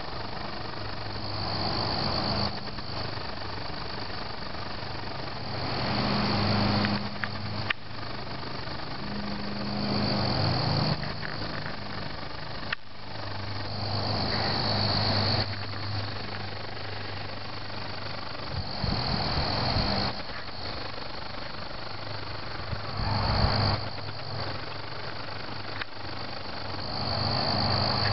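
Crickets chirping steadily in a high continuous trill over a steady low hum, with a broad hiss that swells and fades about every four seconds.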